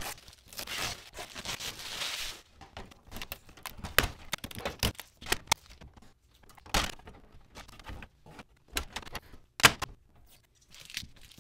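Clear plastic protective film rustling and tearing as it is peeled off a new Canon PIXMA MG3620 printer's housing for about the first two seconds. Scattered plastic clicks and knocks follow as the orange tape is pulled and the scanner lid is lifted and closed.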